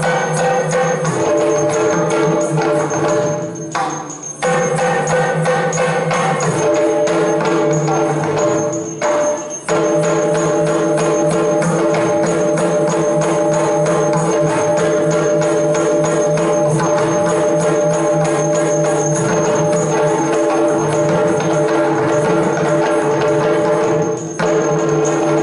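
Yakshagana ensemble music: fast drumming and small hand cymbals over a steady drone of held tones. The music drops briefly twice, about 4 and 9 seconds in.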